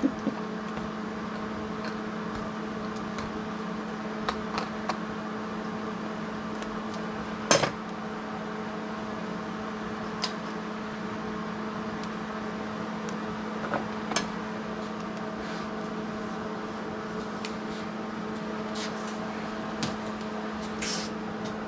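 Steady electrical hum with a few light metal clinks and taps over it, the loudest about seven and a half seconds in, as tools and parts are handled on a metal workbench.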